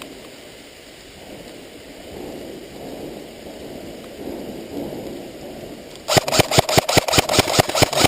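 Rain hissing steadily. About six seconds in, an airsoft gun opens up in full-auto: a loud, rapid run of shots at about seven a second that is still going at the end.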